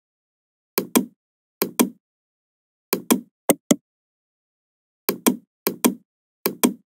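Computer mouse button clicks: about seven close pairs of short, sharp clicks, each a press and release about a fifth of a second apart, coming at uneven intervals.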